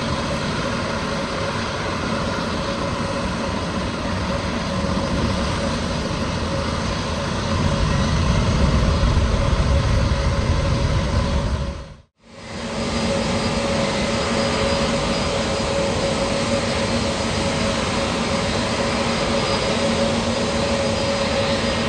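Jet airliner engines running at an airport: a steady roar with a whine, growing louder and deeper for a few seconds past the middle, then dropping out briefly and returning with a steadier whine.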